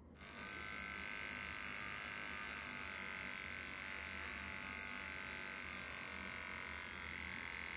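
Electric pet hair clipper running steadily as its blade trims the fur around a dog's muzzle.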